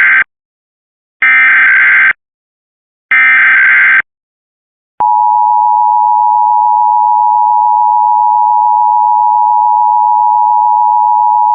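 Emergency Alert System SAME header: three short bursts of shrill, warbling data tones about a second each, the first just ending as it begins. About a second after the last burst, a loud, steady EAS attention tone starts and holds, announcing a required monthly test.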